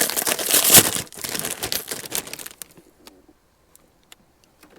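Dense rustling and crinkling for about two and a half seconds, then a few light clicks.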